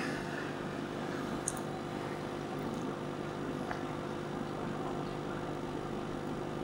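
Steady low mechanical hum with several constant tones, and a couple of faint clicks.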